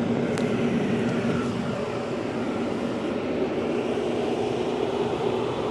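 Steady low rumble of distant engine noise, such as passing traffic.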